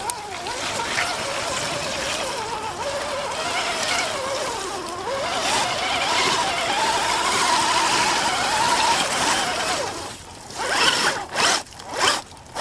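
Electric RC truck's motor and drivetrain whining as it drives through mud, the pitch wavering up and down with the throttle. Near the end come several short, sharp bursts of noise.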